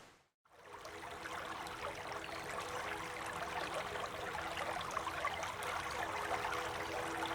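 Running water splashing and trickling, fading in after a brief gap about half a second in, with a few faint steady low tones underneath.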